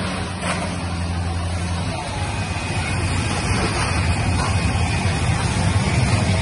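Small fire truck's engine and pump running steadily while pumping water through a hose. Near the end a siren starts to rise.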